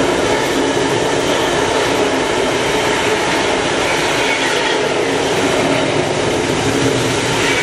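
Freight train of bogie hopper wagons running past close by at speed: a steady, loud noise of steel wheels on the rails, with a faint steady hum.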